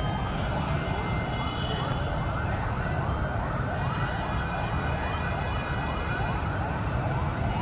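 An emergency-vehicle siren going in a rapid yelp, a rising sweep repeated about twice a second, over a steady background rumble.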